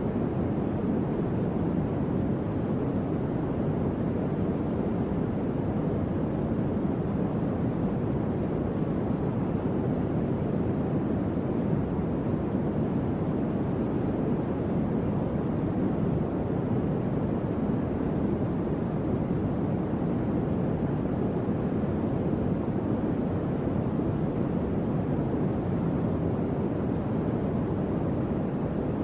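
Electric fan running steadily: an even, low rush of air that stays the same throughout.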